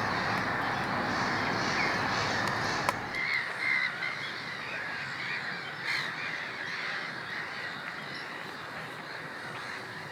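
Many birds calling at once, a busy overlapping mix of short calls, over a steady rushing background that eases about three seconds in.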